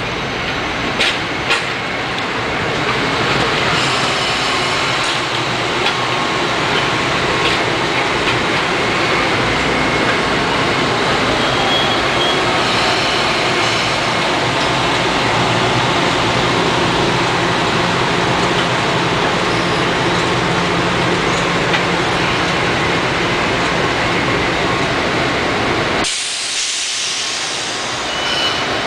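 Metro-North electric multiple-unit commuter train passing close by: a steady, loud rush of steel wheels on rail and running gear, with a few sharp clicks about a second in. Near the end the low rumble drops away suddenly for a couple of seconds, leaving a hiss.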